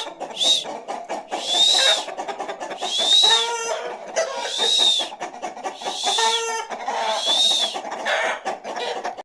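A flock of Aseel chickens calling. High arching calls repeat about once a second, with lower clucks between them.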